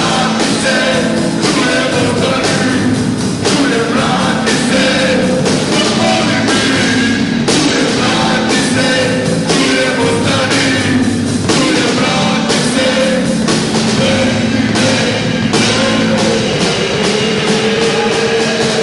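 Live rock band playing loudly: drum kit keeping a steady beat, electric guitars, and a male voice singing into a microphone.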